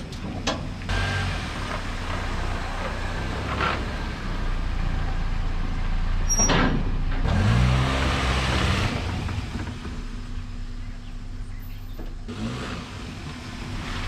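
Small sedan's engine running at low revs while pushing a stripped pickup truck. It revs up and gets louder for a second or two around the middle, then settles back down.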